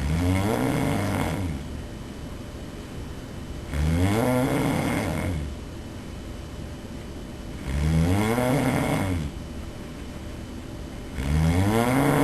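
A person snoring loudly while asleep: four snores, one about every four seconds, each about a second and a half long and rising then falling in pitch.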